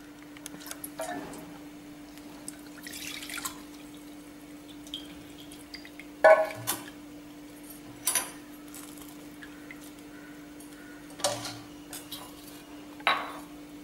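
Kitchen vessels and a spoon clinking a few times, with a brief sound of liquid, over a steady low hum.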